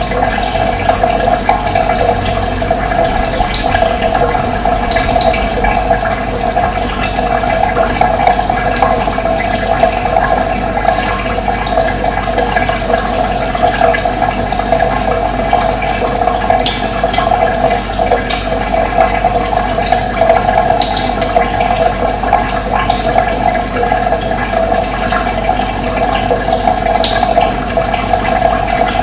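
Steady rush of running water, with birds chirping now and then over it.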